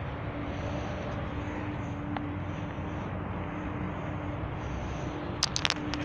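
Steady low rumble and hiss of outdoor background noise with a faint held hum, and a quick run of sharp clicks about five and a half seconds in.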